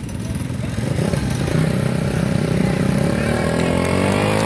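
Two small minibike engines, a 1974 Honda XR75 and an 8 hp Briggs & Stratton, running under way. From about halfway through, one engine's pitch climbs steadily as it speeds up.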